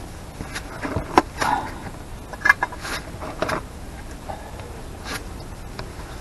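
Scattered sharp clicks and clinks from brake parts and tools being handled while drum-brake shoes and springs are fitted, the loudest about a second in and again around two and a half seconds in.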